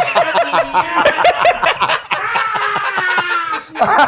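Men laughing hard together in quick, repeated bursts of laughter, with one longer drawn-out laughing note near the middle.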